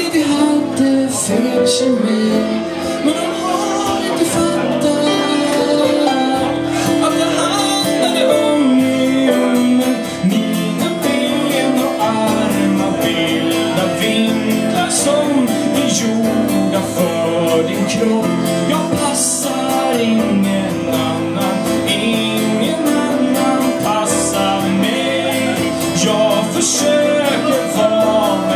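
Live band playing a song: strummed acoustic guitar with a voice singing over it.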